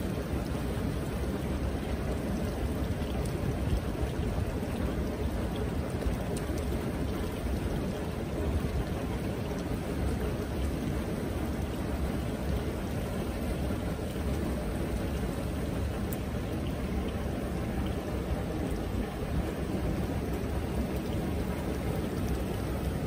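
Steady rushing noise of running water with a low wind rumble on the microphone, and no distinct events.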